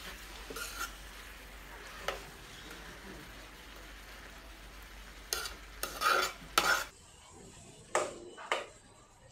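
Metal ladle stirring and scraping chicken pieces around an aluminium pan, over a low sizzle, with a cluster of louder scrapes a little past halfway. Two short clicks near the end.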